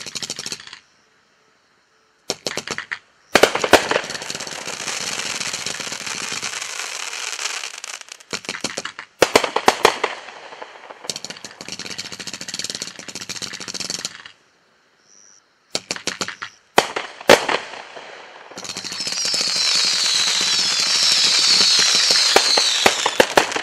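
Winda 'USA Conqueror' 192-shot consumer fireworks cake firing in several volleys. Each volley is a fast string of launch pops and bangs over a hissing crackle, with short pauses between them. The last volley swells into a long crackling hiss.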